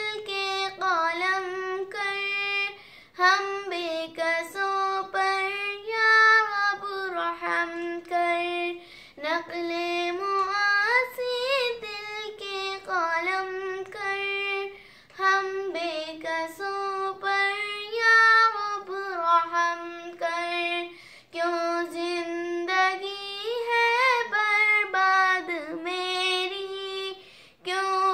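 A young girl singing a devotional song unaccompanied, in melodic phrases of a few seconds with short breaths between them.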